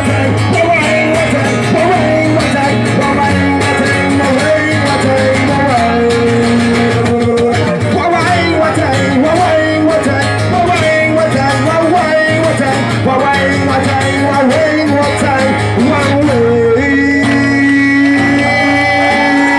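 Live amplified acoustic guitar playing, with a singer's voice carrying a wavering melody over it.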